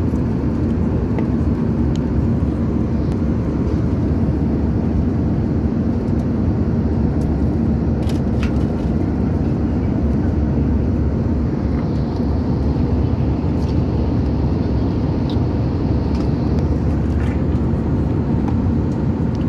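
Jet airliner cabin noise in flight: a steady, loud rush of air and engine noise with a low hum underneath, and a few faint clicks.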